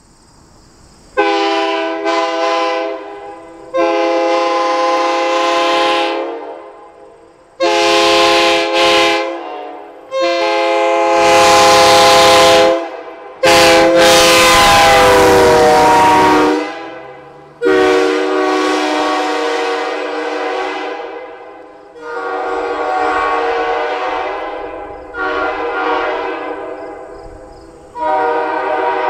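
Nathan Airchime K3L Canadian-tuned three-chime train horn mounted on a car, sounding a series of short and long blasts as the car approaches and passes. The chord drops in pitch as the car goes by, and the later blasts fade as it moves away.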